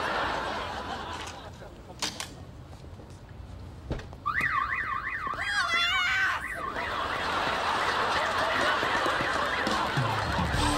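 A minivan's car alarm goes off about four seconds in: a warbling siren that switches to a faster, higher warble and cuts off after a couple of seconds. A studio audience then laughs and applauds.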